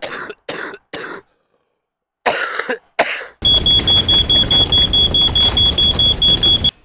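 A person coughing in short fits, then about halfway through a smoke alarm starts beeping rapidly in a high, piercing tone over a loud steady rushing noise.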